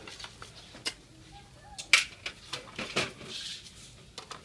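Scattered clinks and taps of spoons against ceramic bowls and plates while eating, a few separate sharp knocks, the loudest about two seconds in.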